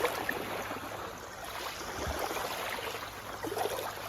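Running water: a steady rushing and trickling of a stream or river's flow.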